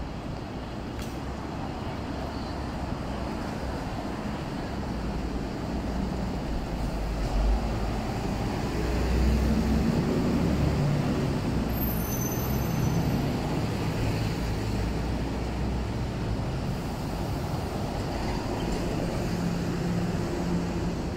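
Street traffic with a heavy vehicle's engine running close by, the low rumble swelling about a third of the way in and easing off toward the end, and a short high squeal around the middle.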